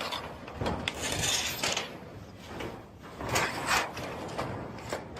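Scraping and rubbing of roofing material being worked loose by hand, with a few sharp knocks about three and a half seconds in.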